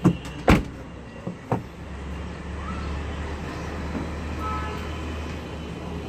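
Three sharp knocks, then a steady low engine hum that sets in about two seconds in and holds.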